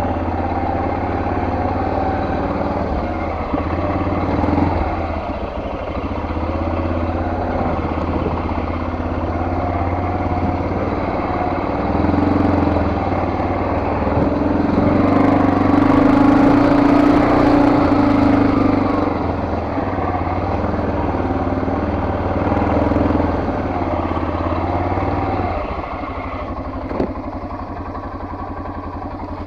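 Vehicle engine running under load as the driver works it to get free from a stuck spot on a rough trail. It grows louder about halfway through, then drops to a quieter idle near the end.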